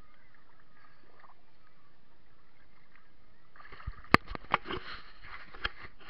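Faint steady hiss, then from a few seconds in a burst of water splashing with a run of sharp knocks and clunks against a plastic pedal boat's hull as the camera is taken out of the water and onto the boat, the loudest knock just after the splashing starts.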